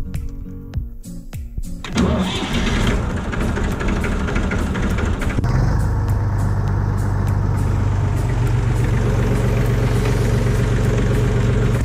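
Old tractor's diesel engine started on the key: the starter cranks it about two seconds in, it catches, and from about five and a half seconds it settles into a steady idle.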